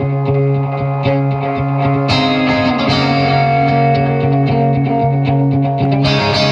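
Distorted electric guitar played through a delay pedal: sustained notes and chords over a steady low note, with fresh chords struck about two seconds in and again near the end.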